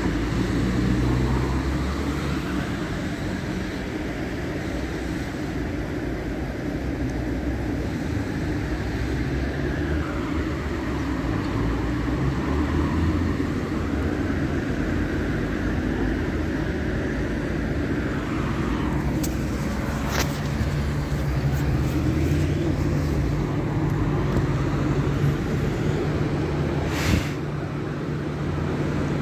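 Automatic car wash at work, heard from inside a car: large rotating cloth brushes swishing against the car body and windscreen amid water spray, over a steady machinery hum. A few short sharp knocks about two-thirds through and near the end.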